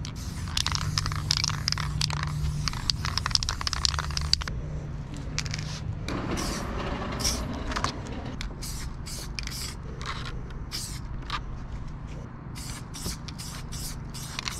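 Aerosol spray paint can spraying: a longer spell of hissing in the first few seconds, then many short, separate bursts of spray. A steady low hum runs underneath.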